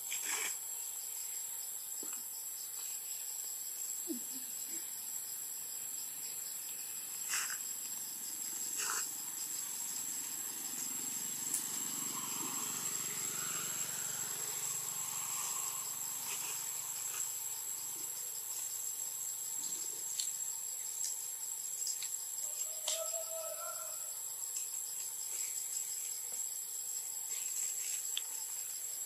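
Steady high-pitched drone of insects in the forest, with scattered faint clicks and rustles from the branches and a brief faint call late on.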